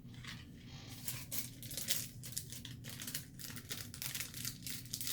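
Packaging being crinkled and handled: a rapid, irregular run of crackles that starts about a third of a second in and gets denser after about a second.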